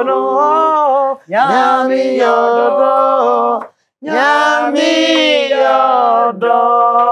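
Two women singing unaccompanied in long held notes, breaking off briefly about a second in and again near four seconds.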